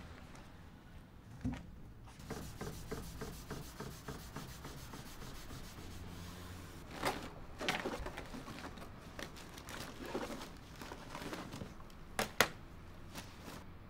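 A hand rubbing back and forth across a table top in quick, even strokes, then a few sharp knocks on the table, the loudest pair near the end.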